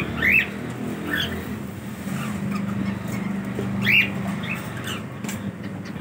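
Cockatiels calling with short rising chirps, two louder ones about a third of a second in and about four seconds in, over a steady low hum.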